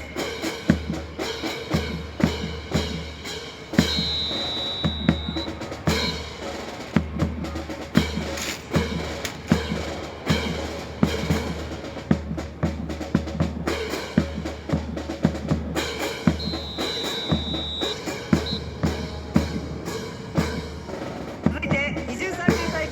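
Music with a steady bass-drum beat and sharp snare-like cracks throughout. A high held tone sounds twice, about four seconds in and again about sixteen seconds in.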